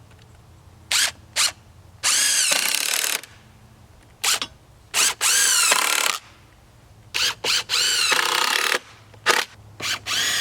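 Electric drill run in repeated bursts, some short blips and some about a second long, its motor pitch rising as it speeds up and falling as it slows each time.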